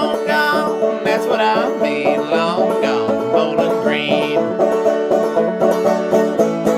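Clawhammer banjo playing the closing instrumental bars of a song, in a steady rhythmic picking pattern over ringing held notes. A wavering, sliding melody line rides above it for the first four seconds.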